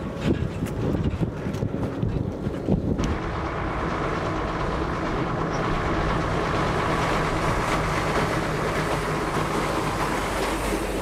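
Uneven, gusty rumbling for about three seconds, then the steady drone of heavy container trucks driving past on an asphalt road, engine and tyre noise blended together.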